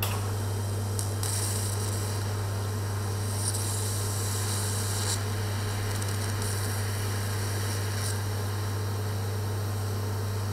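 EWM microplasma welder and torch running a low-current arc: a steady low hum with a faint airy hiss above it.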